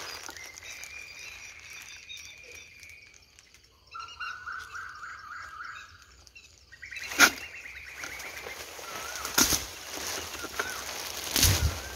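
Calls of night animals: a steady high trill for a few seconds, then shorter pulsed trills lower in pitch, with faint wavering tones afterward. Sharp clicks and knocks from the clamp pole in the branches cut through, the loudest about seven seconds in.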